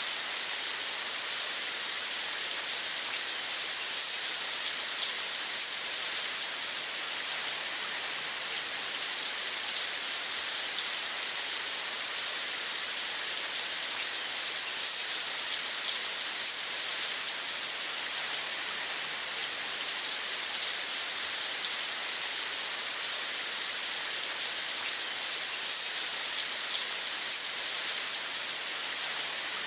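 Steady rain, an even hiss of many small drops pattering on a surface.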